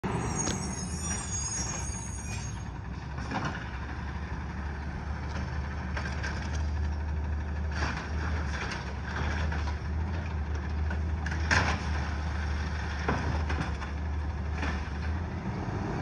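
Distant garbage truck running with a steady low rumble, with several short sharp sounds from the truck spread through it.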